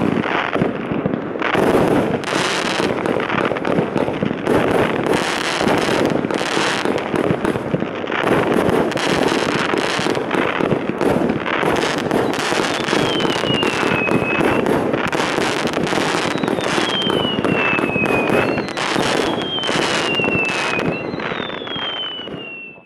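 Ghettoblaster firework combination box (cake) firing a continuous barrage of shots and crackling star bursts. From about halfway on, four falling whistles sound over the barrage, and the firing dies away at the very end.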